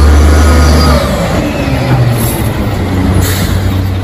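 Mack rear-loader garbage truck's diesel engine running as the truck drives past close by: a steady low drone that turns rougher and noisier about a second in.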